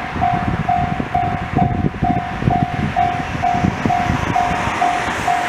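Japanese level-crossing alarm ringing, a single clear ding repeating evenly about twice a second, over a low rumble from an approaching freight train.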